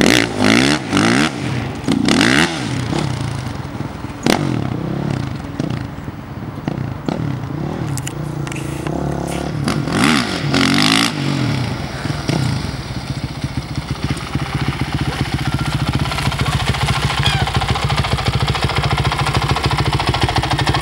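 2006 Honda CRF450R's single-cylinder four-stroke engine revving up and down repeatedly as the dirt bike is ridden. About halfway through it settles into a steady idle.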